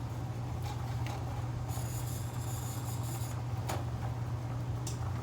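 A spoon stirring Alfredo sauce in a pan, scraping and rubbing against the pan with a few light clicks. The scraping is loudest about two to three seconds in. A steady low hum runs underneath.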